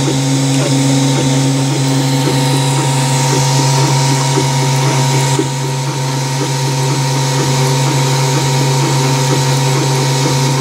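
Wanhao Duplicator 4 3D printer running. Its stepper motors sing in short, quickly repeating rising and falling tones as the print head zigzags through the infill, over a steady low hum.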